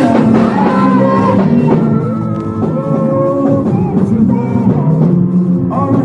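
Live music with singing, loud and continuous, over a steady low accompaniment.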